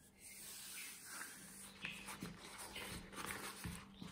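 Faint rustling of a crumpled cloth food wrap being handled and opened around a ball of pasta dough, with a few light taps and crinkles.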